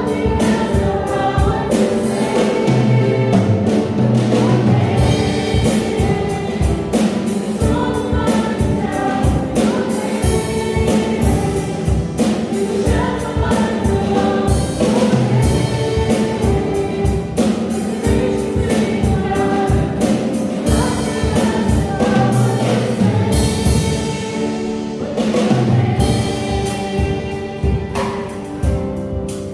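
Several women singing a worship song together, accompanied by an acoustic guitar strummed in a steady rhythm.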